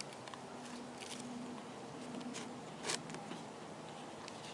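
Faint rustling and soft handling noise of a flour tortilla being folded and rolled over filling on parchment paper, with one short louder crinkle about three seconds in, over a faint steady hum.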